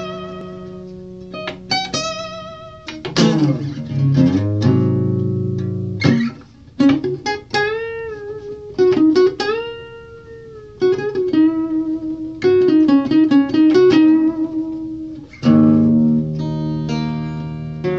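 Acoustic guitar played solo. Strummed chords at the start and again near the end frame single-note lead lines, with notes bent, slid and shaken with vibrato.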